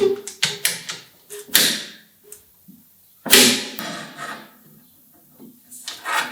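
Hand woodworking on wood: a quick irregular series of sharp knocks and taps, with two longer scraping strokes about a second and a half in and just after three seconds.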